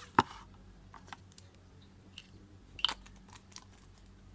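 Small hard objects being handled on a work surface: a sharp click just after the start, another knock just before three seconds in, and a few faint taps in between.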